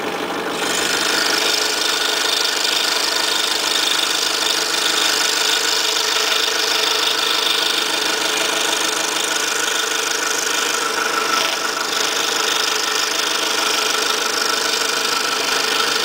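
Scroll saw running with a fine 2/0 blade, cutting steadily through a stack of three layers of 1/8-inch plywood. The motor and the blade's up-and-down stroke make a steady mechanical drone, and a brighter cutting noise sets in about half a second in as the blade bites into the wood.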